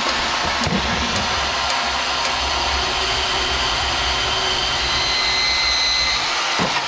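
A power tool running steadily at full speed, a dense hiss of noise with a thin high whine, its pitch starting to fall as it winds down at the very end.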